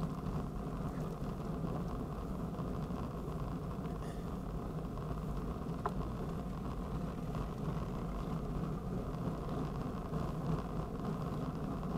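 Steady rumble of bicycle tyres rolling on asphalt, mixed with wind noise on a handlebar-mounted camera, with a light click about six seconds in.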